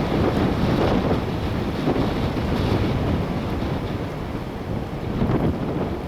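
Strong wind gusting through trees, rising and falling, with wind buffeting the microphone.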